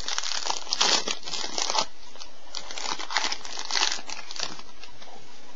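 Plastic trading-card pack wrapper crinkling in irregular bursts as hands open it and handle the cards. It settles down near the end.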